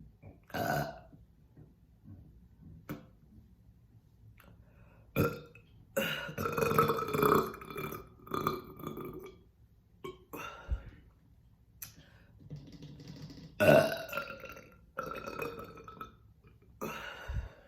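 A woman burping again and again, the burps brought up by chugging a bottle of orange soda: about seven burps with quiet gaps between, one long drawn-out burp a third of the way in and the loudest, sharpest one about three-quarters of the way through.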